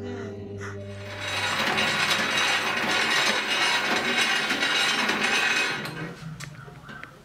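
Old black treadle sewing machine running at stitching speed: a fast, dense clatter of needle and gears that lasts about four seconds, then winds down to a stop with a few light clicks.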